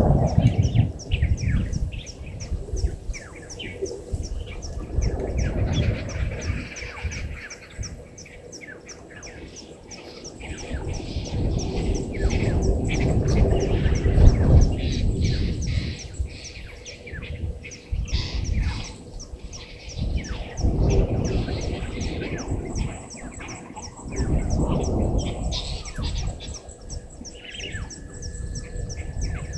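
Outdoor bush ambience: a rapid, even train of short high chirps, about four or five a second, with other bird calls over it. Beneath them is a low rumbling noise that swells and fades every few seconds, loudest about halfway through.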